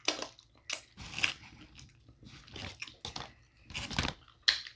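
Eating snow crab legs in sauce: a string of short, wet chewing and biting sounds with a few sharper crunches, as crab shell is picked apart by hand.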